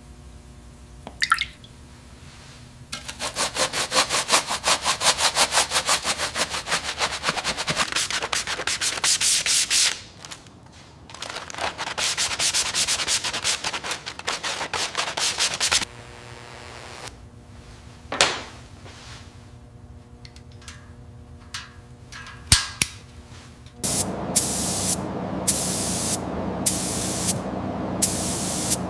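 Rust being sanded off an old bicycle by hand: fast, rhythmic rubbing strokes, then a longer stretch of steady scraping. Near the end come short, repeated hisses of a spray can, paint going on in quick bursts about a second apart.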